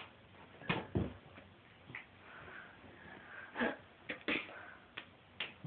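Irregular taps and thumps of a ball being batted about by a cat, about nine in all, with a deeper thump about a second in.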